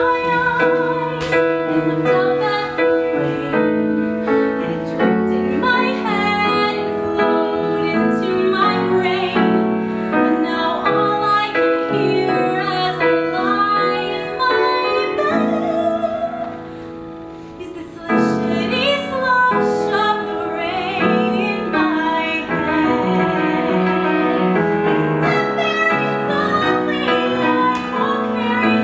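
A woman singing a musical-theatre song over piano accompaniment. The sound thins out briefly a little past the middle, then the singing comes back in full.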